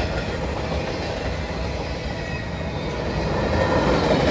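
Freight train cars rolling past: a steady rumble of steel wheels on the rails, growing a little louder near the end.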